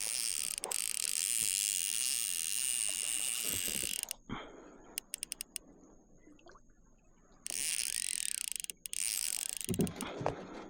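Baitcasting fishing reel whirring with a fine ratcheting texture while a hooked redfish is fought. It runs for about four seconds, stops with a few clicks, and whirs again for about two seconds near the end.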